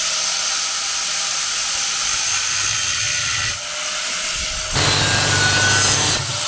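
Small angle grinder with a thin cut-off disc running at full speed, a steady whine with hiss, cutting down an aluminium hose port on a radiator. The cut gets louder and heavier from about five seconds in.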